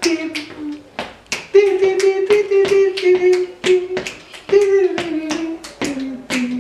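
A voice singing a slow Spanish-language ballad melody in long held notes, about a second each, stepping down and up between them. Sharp percussive strokes come every fraction of a second underneath.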